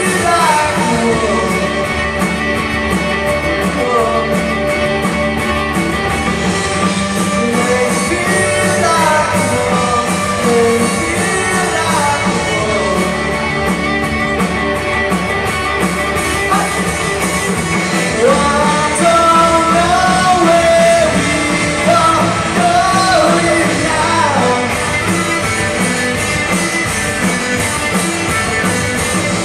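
Rock band playing live, with a lead vocal singing over guitar, bass and drums.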